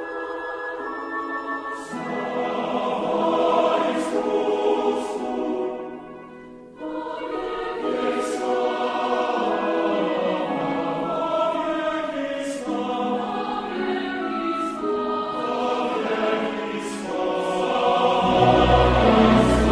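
Background music with a choir singing, swelling louder with deep bass coming in near the end.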